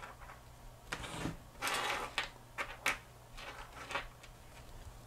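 Small metal-and-phenolic potentiometers being handled and set down on a workbench: a few light clicks and knocks, with a brief scraping rustle about two seconds in, over a faint steady low hum.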